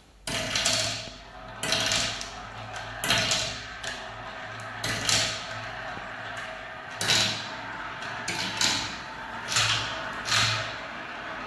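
Marbles rolling down a spiral marble-run track: a continuous rolling rumble that starts suddenly just after the beginning, with repeated louder clacks as the balls knock along the track.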